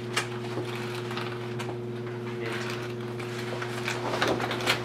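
A steady low hum, with light crinkling and rustling of hanging bubble-wrap sheets, busiest near the end as the sheets are pushed aside.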